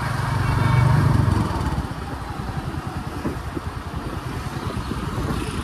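Motorcycle engine running while riding in traffic; it gets louder about a second in, then eases back to a lower, steady run.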